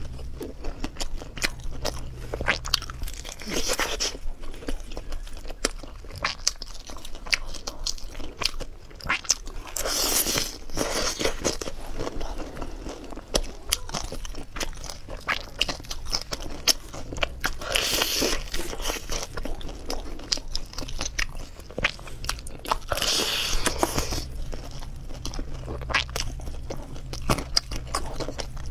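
Close-miked eating of sauce-coated fried chicken: crisp bites and wet, sticky chewing with many small clicks, broken by a few longer, louder crunches.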